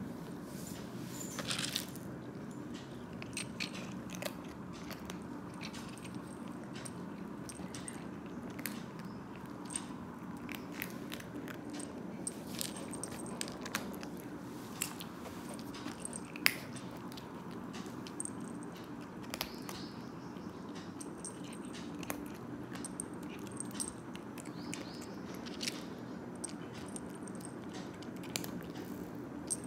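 Domestic cat crunching dry kibble: irregular crisp crunches over a steady low hum, with one sharper, louder click a little past halfway.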